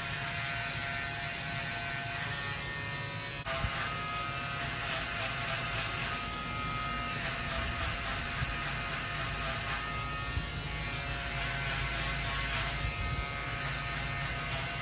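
Electric hair clipper running steadily while cutting a fade, with a sharp click about three and a half seconds in.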